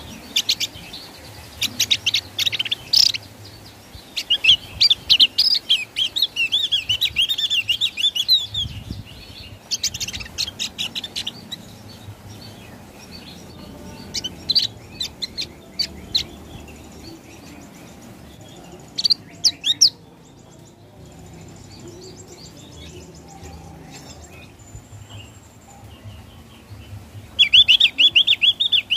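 Javan grey-throated white-eye (opior Jawa) singing in its 'ngeplong' style: short bursts of rapid, high chattering notes with pauses between them. A longer warbling run comes early on, and a loud burst comes near the end.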